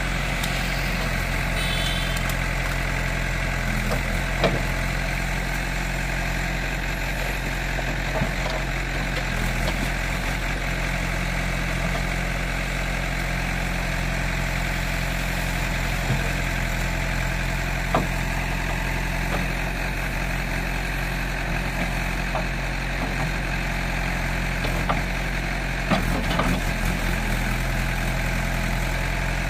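JCB 3DX backhoe loader's diesel engine running steadily while the backhoe arm digs wet sludge out of a drain, with a few sharp knocks scattered through.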